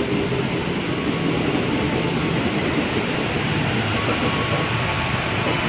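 Heavy rain pouring down on the platform roof and track, mixed with the steady running noise of electric commuter trains moving through the station, with a faint steady motor whine.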